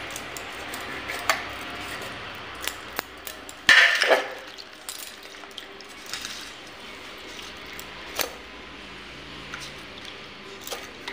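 Stainless-steel dishes clinking and clattering as garlic cloves are washed by hand in a steel bowl and handled around a steel mixer-grinder jar, with scattered light clinks and one louder metallic clank about four seconds in.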